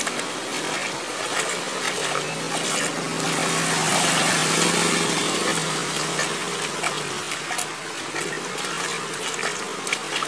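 Floodwater rushing across a flooded road, a steady hiss of water that swells for a few seconds in the middle.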